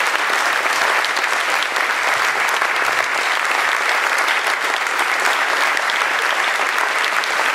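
Large audience applauding steadily, a dense patter of many hands clapping, some of the crowd on their feet.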